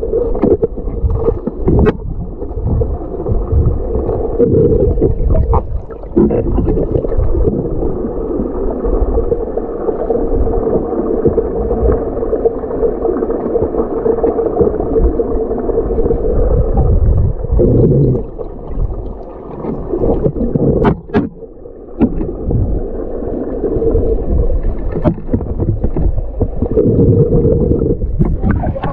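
Muffled underwater rumble and water noise picked up by a submerged camera, with a steady hum and a few sharp clicks; it dips briefly twice in the second half.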